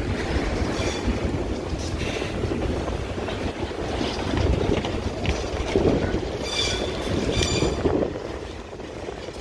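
GE AC44i diesel-electric locomotives rolling slowly through a rail yard: a steady low rumble of engines and wheels. Two brief high-pitched metallic squeals come a little past the middle.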